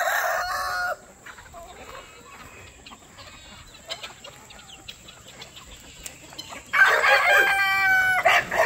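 Roosters crowing in a large free-range flock: one crow ends about a second in, and another long, steady-pitched crow comes near the end. Softer hen clucking fills the stretch between.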